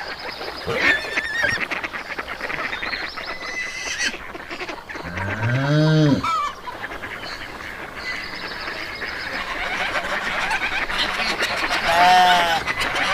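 Farm-animal calls over a steady noisy background. A long low call rises and falls in pitch about five seconds in, and a shorter, higher call comes near the end.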